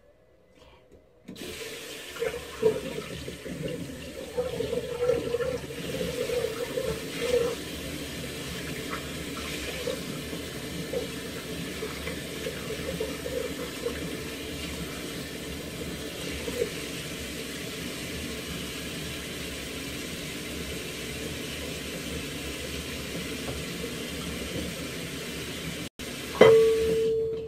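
Steady rush of running water, like a tap left running. It starts about a second in and is broken near the end by a short dropout and a sudden knock.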